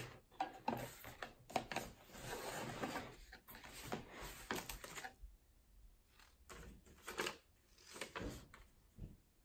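Paper and cardboard rustling and scraping as printed inserts and packaging are handled and pulled out of a cardboard box, with scattered light knocks. The rustling is busiest in the first half and thins to occasional taps later.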